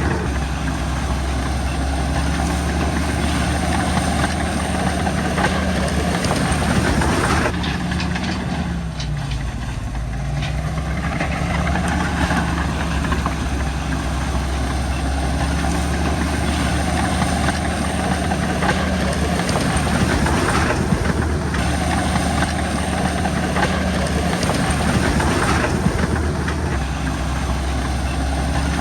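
Komatsu crawler bulldozer's diesel engine running steadily, with its engine note dipping for a couple of seconds about a third of the way in and then picking back up.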